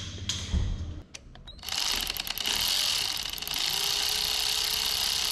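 Power ratchet running, undoing the cylinder head bolts of a Yanmar 4JH3E marine diesel. The tool starts about two seconds in and runs steadily, with a fast, dense rattle.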